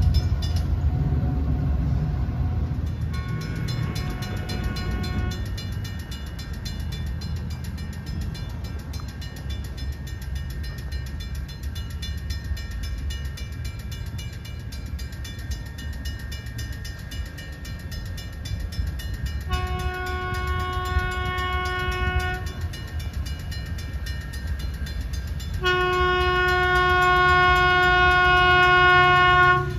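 Sprinter line Siemens Desiro diesel railcar approaching with a low engine and rail rumble, sounding its chord horn: a faint blast a few seconds in, then two long blasts, the second near the end longer and louder.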